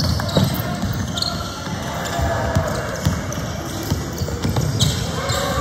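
A basketball dribbled on a wooden court, with several separate bounces over the steady background noise of a large indoor hall.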